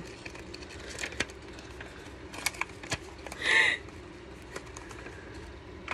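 Quiet handling sounds: a few light clicks and taps of small objects over a low steady background hum, with a short breathy vocal sound about three and a half seconds in.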